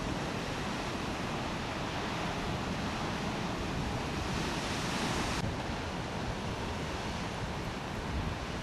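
Ocean surf breaking, a steady wash of noise, with wind buffeting the microphone. A brighter hiss builds in the middle and cuts off suddenly a little past halfway.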